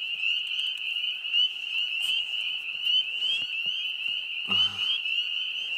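A dense chorus of frogs: many high, short rising calls overlapping into a steady chorus.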